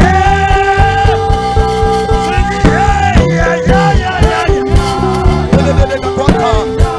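Upbeat praise band music with a fast, steady drum beat under sustained held notes.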